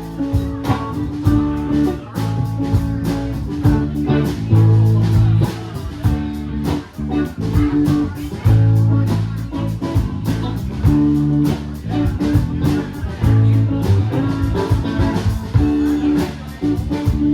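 Live blues band playing, with guitar over a steady beat.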